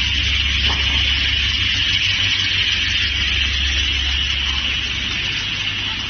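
Multi-blade log rip saw running, with a steady low motor hum under a steady high-pitched noise from the blades.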